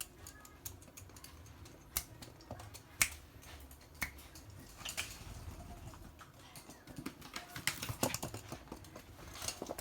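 Scattered light clicks and taps as toy poodles move about on a hard floor, with one sharper click about three seconds in and a quick run of taps near the end.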